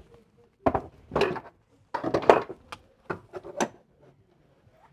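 Pieces of wood knocking and clattering as they are handled: a handful of sharp, irregular knocks, the loudest cluster about two seconds in.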